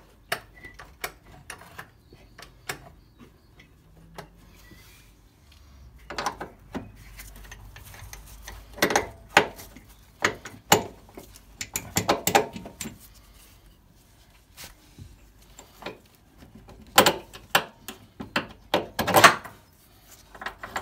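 Irregular metallic clicks and clunks of a mounting bolt and socket being fitted and run up by hand into a car's rear axle beam mounting, with scattered light ticks and several louder bursts of clatter.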